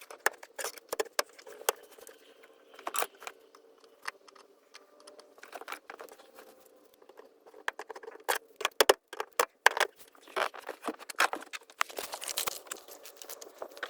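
Hand tools and small metal parts being handled while working on a car's fuel pump: irregular clicks, taps and light rattles, coming thicker in the second half.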